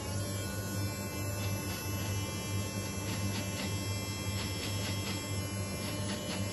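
Small electric motor and gearing of a Meccano round-the-pole helicopter model running, a steady electric hum as the helicopter swings around the mast. Scattered light clicks come in from about halfway through.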